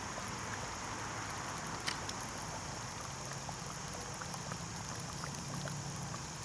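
Sauce simmering in a cast-iron Dutch oven: faint scattered pops and ticks, one sharper tick about two seconds in, over a steady low hum.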